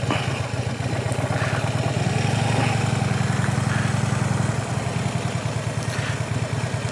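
Harley-Davidson Street Glide Special's V-twin engine running at low speed as the bike rolls through a slow turn. It swells a little about two seconds in and eases back about halfway through.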